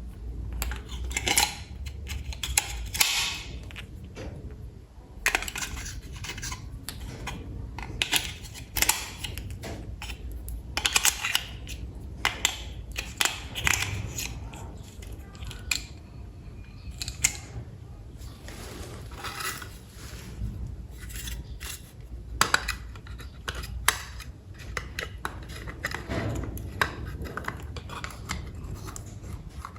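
Hands handling toy train set parts: irregular clicks, taps and short scrapes of small hard pieces being picked up, set down and fitted together.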